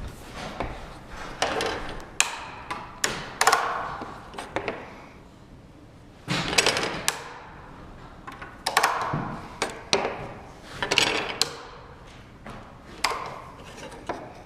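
Workshop handling sounds: a string of sharp knocks, taps and clunks with some scraping in between, as a workpiece and tools are moved and set on a workbench. No saw or motor runs.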